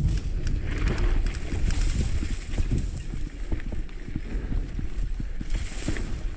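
Mountain bike rolling over a dry dirt trail: tyres on the ground, small rattles and knocks from the bike over bumps, and wind buffeting the camera microphone. Twice, about two seconds in and again near the end, there is a brief dry hiss like grass brushing past.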